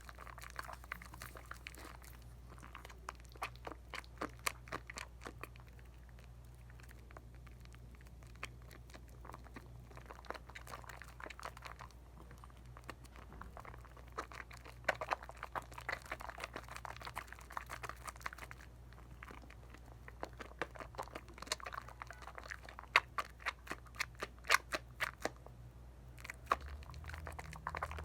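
Dial coconut soap lather being worked wet: a dense, irregular crackle of tiny clicks and popping bubbles, growing louder and busier in clusters about halfway through and again a little after two-thirds through.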